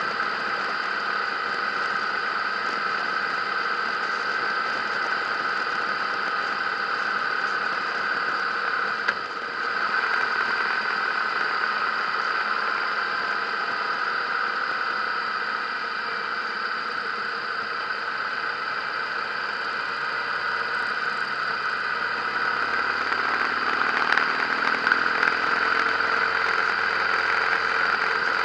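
Harley-Davidson motorcycle's V-twin engine running steadily while riding on the road, picked up by a camera mounted on the bike, with road and wind noise; it gets a little louder near the end.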